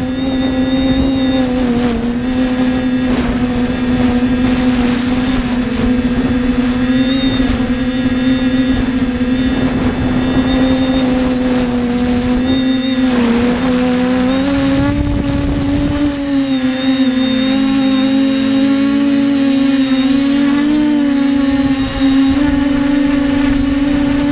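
TBS Discovery Pro quadcopter's electric motors and propellers buzzing steadily in flight. The pitch wavers with small throttle changes and steps up a little about halfway through.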